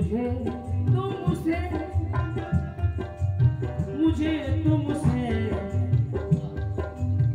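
Ghazal music: tabla drumming under a sustained melody with bending, gliding notes.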